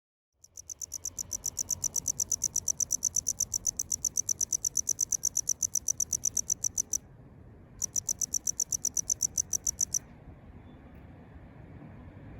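Male tropical house cricket (Gryllodes sigillatus) calling: a high-pitched, even train of chirps about eight a second. The song breaks off for under a second about seven seconds in, resumes, and stops about ten seconds in.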